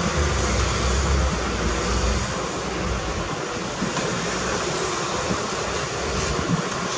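Heavy earthmoving machinery running, a steady rushing mechanical noise with a deep rumble that drops away about two seconds in.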